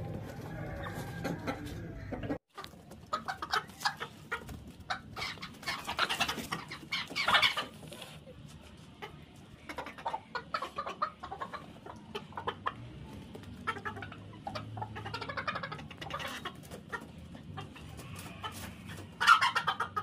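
Chickens clucking in many short, irregular calls, with louder bouts about seven seconds in and again near the end. The sound cuts out completely for a moment about two and a half seconds in.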